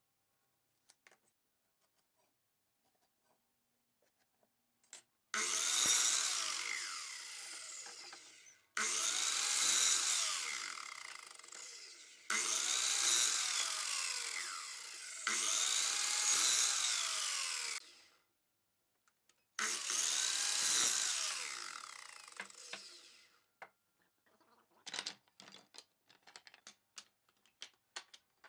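Power tool working wood in four runs of three to five seconds, each starting suddenly and easing off, its pitch sweeping up and down. Light clicks and taps of handling come before and after.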